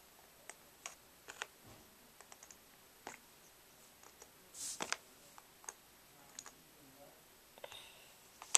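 Plastic Lego bricks clicking and clattering as they are picked up and pressed onto a stack: irregular sharp clicks, a brief rustle about halfway, and the sharpest click near the end.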